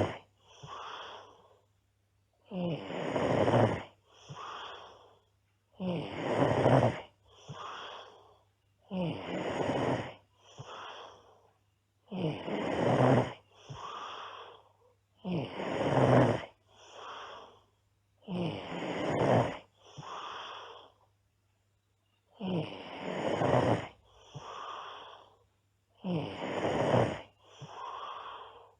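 A girl snoring loudly in a steady rhythm: each cycle is a long, loud snoring breath followed by a shorter, quieter one, repeating about every three seconds.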